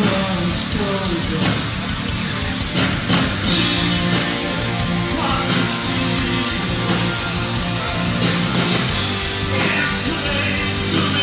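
A rock band playing loud live: distorted electric guitar and drums with a man singing.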